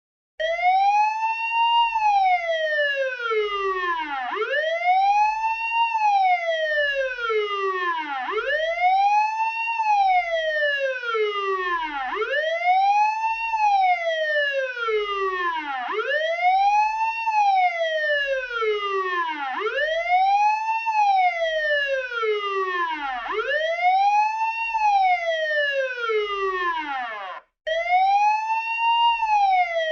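Police car siren sounding a wail: the pitch sweeps up quickly and falls more slowly, about once every four seconds. It cuts out briefly near the end, then starts again.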